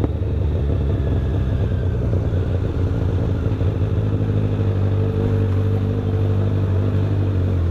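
Kawasaki Ninja 1000's inline-four engine running steadily at low speed through a toll lane, with wind noise on the bike-mounted microphone.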